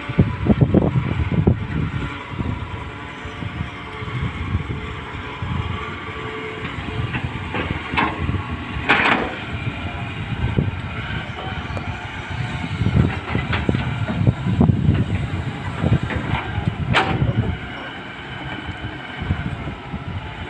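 Tata Hitachi 210 excavator's diesel engine running under load as the hydraulic boom and bucket dig and lift soil, with a few sharp clanks.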